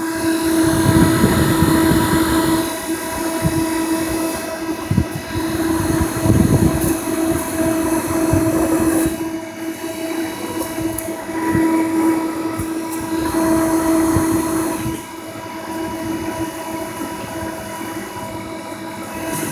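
Snack vending machine's refrigeration unit running, its compressor and condenser fan giving a steady pitched hum that swells and fades. Low knocks and rumbles come and go over it.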